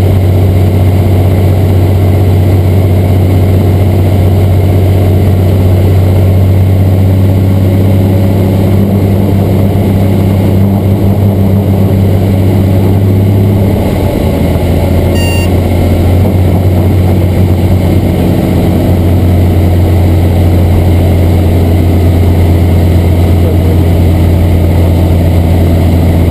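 Robinson R44 Raven II helicopter heard from inside the cabin, its six-cylinder piston engine and rotor system running steadily on the ground as a loud, low drone. About 14 seconds in, the drone drops slightly in pitch.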